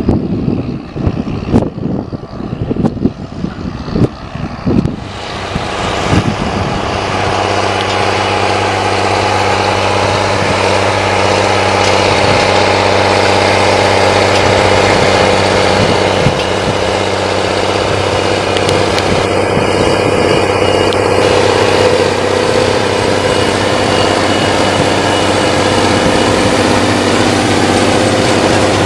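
For about the first five seconds, wind buffets the microphone over a faint tractor. From about six seconds in, the Rába 245 tractor's diesel engine runs loud and steady under load, pulling a seedbed cultivator through the soil.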